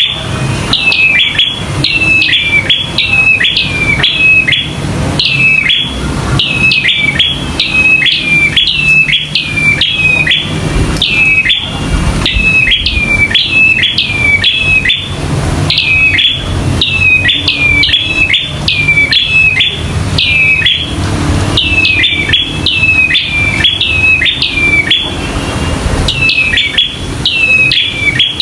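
Prinia (prenjak) repeating a sharp, clipped fighting call, about one to two notes a second in long runs with brief pauses, over a low steady hum.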